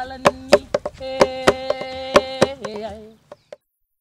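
Hawaiian hula chant sung by one voice on long held notes, with a sliding drop at the end of a phrase, over sharp hand-struck drum beats about three to four a second. Chant and drum stop together about three seconds in.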